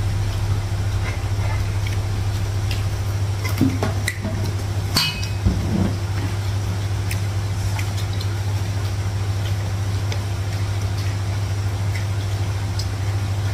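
Steady low hum, with a few light clinks and taps of spoons and cups on plates and bowls at a floor-spread meal.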